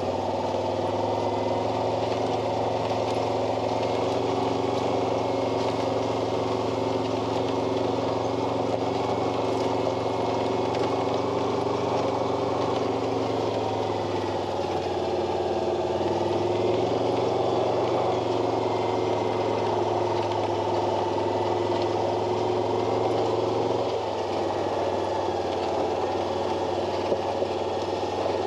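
A vehicle engine running at a steady speed while driving, with small shifts in its pitch about halfway through and again near the end.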